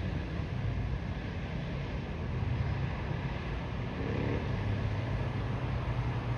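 Airbus A321 jet engines running with a steady noise and a low drone, the level holding even throughout.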